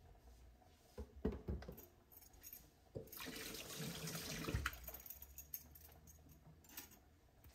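A few light knocks on a plastic cutting board as cherry tomatoes and a kitchen knife are set down, then a tap runs with a hissing rush for about a second and a half.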